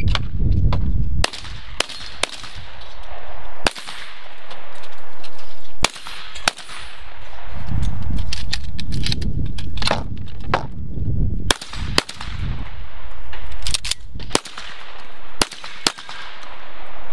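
Semi-automatic 12-gauge shotgun fired many times at an irregular pace: some shots come in quick pairs about half a second apart, and others are separated by pauses of up to a couple of seconds.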